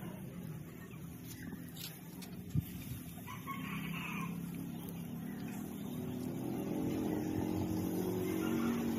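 A rooster crows once, for about a second, roughly three and a half seconds in, after a single sharp tap. From about halfway on, a steady engine hum grows louder toward the end.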